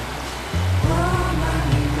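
Background music: a steady bass line with a gliding melody coming in about a second in.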